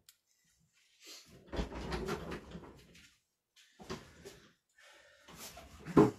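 Objects being handled and moved about on a work surface: a stretch of rustling and bumping, then a sharp knock near the end.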